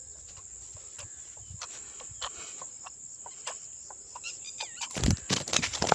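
Crickets chirring steadily with a chicken clucking near the end. A burst of loud knocks and rattles in the last second.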